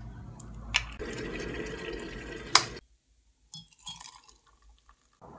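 Water poured from an electric kettle into a ceramic mug, a filling sound lasting about two seconds with a sharp clink near its end. After it stops come a few faint clicks.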